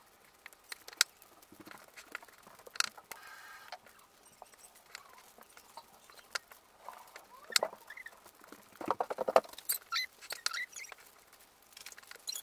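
Hands squeezing and rubbing spice-coated raw chicken breasts on a ceramic plate: irregular wet squelches and sharp clicks, with a louder run of squelching about three quarters of the way through.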